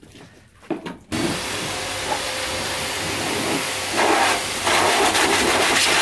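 A strong, steady hissing jet switches on abruptly about a second in and grows louder from about four seconds in: a cleaning jet played over an Old English Sheepdog's coat.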